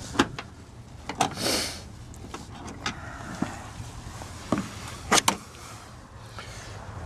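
Scattered sharp clicks and taps of a small screwdriver and the loosened window-crank handle and screw being handled on a VW bus door, about eight in all, two in quick succession a little past the middle, over a faint steady hum.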